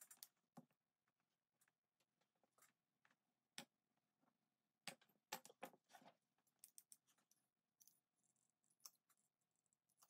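Faint, scattered clicks and taps of hand tools and leather strapping being handled on a workbench, with a few sharper knocks a few seconds in.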